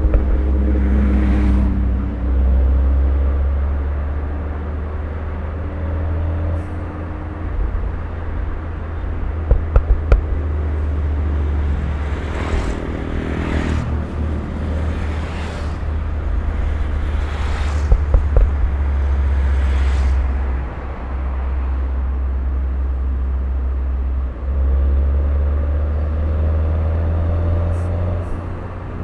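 Turbocharged Mini Cooper on the move: a steady low engine drone that rises and falls with the throttle. Short clusters of sharp exhaust pops come about ten seconds in and again around eighteen seconds.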